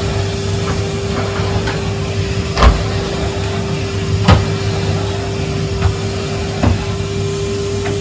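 Cylinder vacuum cleaner running steadily with a constant hum as its floor head is pushed over carpet. A few sharp knocks cut through, the loudest about two and a half and four seconds in.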